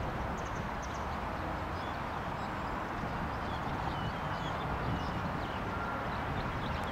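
Steady outdoor background noise with small birds chirping briefly and sparsely over it.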